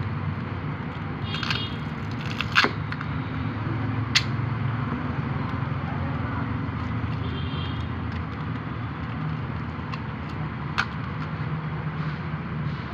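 Steady low background rumble, with a few short sharp clicks, at about two and a half, four and eleven seconds in.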